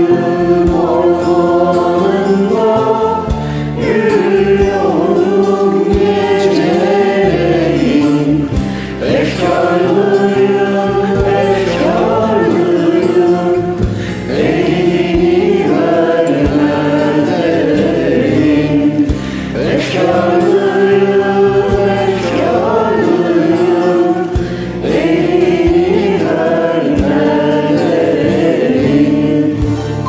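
Several voices singing a Turkish song together over a karaoke backing track, in sung phrases with brief pauses between them.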